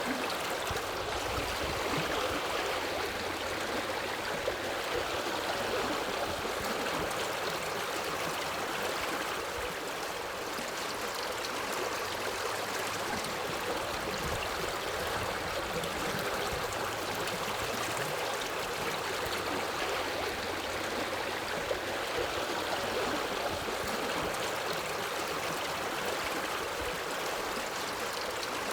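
A forest river flowing steadily over rocks: an even, continuous rush of running water.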